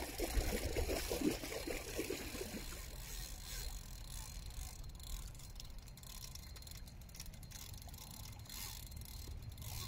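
Spinning reel being worked against a hooked sturgeon: a run of quick clicks and ticks for the first couple of seconds, then fainter, over a low rumble.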